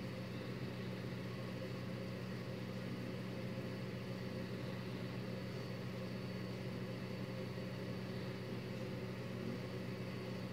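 A steady low hum, like a running motor or appliance, unchanging throughout.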